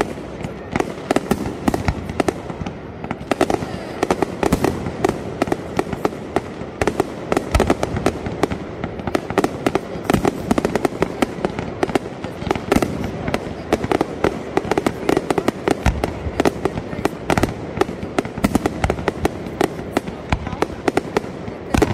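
Fireworks display: aerial shells bursting in rapid succession, a dense run of sharp bangs and cracks several a second with no let-up.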